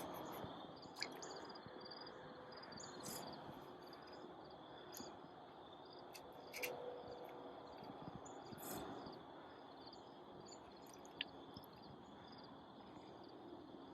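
Faint outdoor ambience: a steady high insect trill with scattered short bird chirps and a few soft clicks.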